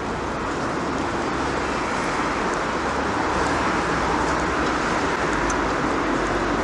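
Steady urban background noise, an even traffic-like hum with no distinct events.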